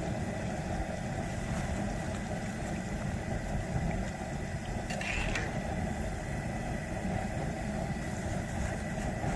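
Steady low rumble and hiss of an outdoor propane fish fryer: the burner running under a pot of hot oil with potato chips frying in it. A brief higher sound about five seconds in.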